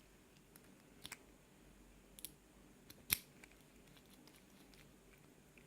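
A few faint, sharp metallic clicks from a KIK key-in-knob lock cylinder being worked by hand. The loudest click comes about three seconds in.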